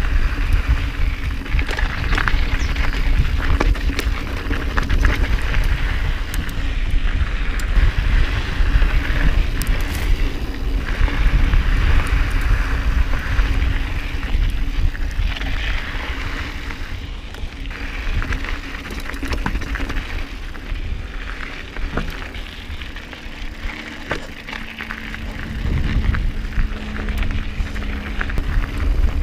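Specialized Stumpjumper mountain bike ridden over a dirt singletrack: tyres crunching on dirt and loose stones and the bike rattling and clicking over bumps, under a steady rumble of wind on the microphone.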